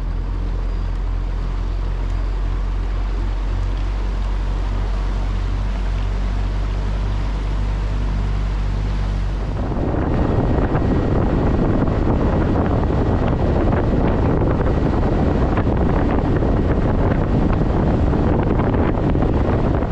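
A bass boat's outboard motor idles with a steady low hum. About halfway through it gives way abruptly to a louder, steady rush of wind and water as the boat runs at speed, with wind buffeting the microphone.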